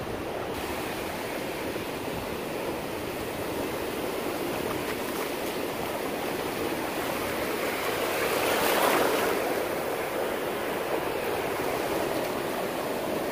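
Shallow surf washing over the sand at the water's edge, a steady rush of water that swells louder about two-thirds of the way through as a wave runs in.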